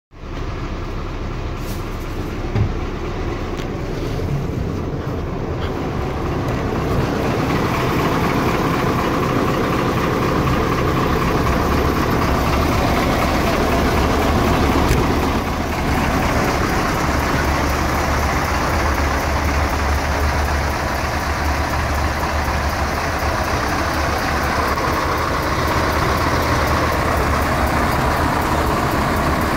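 Iveco 260.30 tipper's air-cooled V8 twin-turbo diesel running steadily, heard first inside the cab and then from outside beside the truck, where it is louder from about seven seconds in. A brief click about two and a half seconds in.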